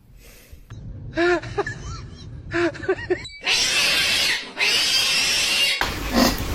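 A cat giving several short meows that rise and fall in pitch, then two long hisses of about a second each.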